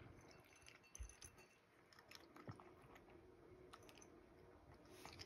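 Cat chewing dry kibble: faint, irregular little crunches.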